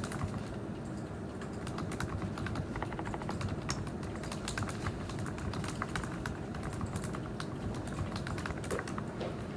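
Typing on a computer keyboard: a steady patter of key clicks, coming in quicker runs at times.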